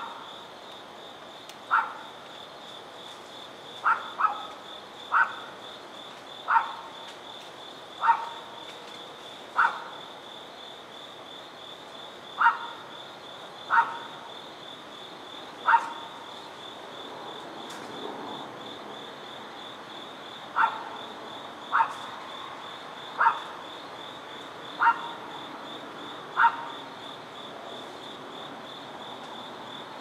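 Crickets trilling steadily at a high pitch, with a dog barking over it: single short barks every one to two seconds, pausing for a few seconds in the middle.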